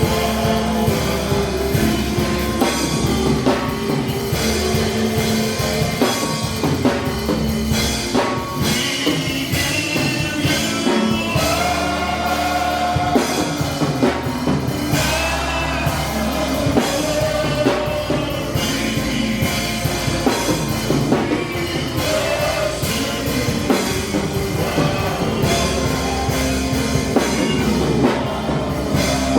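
Live gospel worship music: a band with drum kit and keyboard playing steadily, with some singing.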